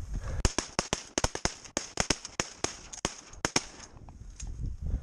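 A rapid, irregular string of sharp shotgun reports, about fifteen in three seconds from several hunters firing at once at incoming ducks, then dying away about a second before the end.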